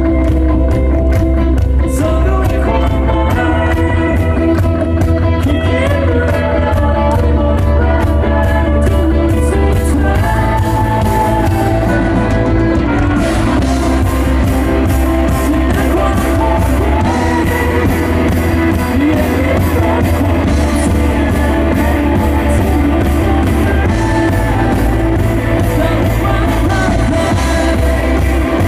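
Live rock band playing with singing, electric guitar, bass and drums, loud and continuous.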